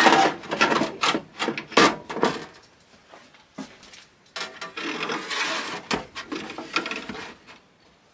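Steel handsaw blades being slid into a wooden saw till and knocking against the pine rails: a quick run of knocks and clatters at first, a longer scraping slide around the middle, then a few more knocks.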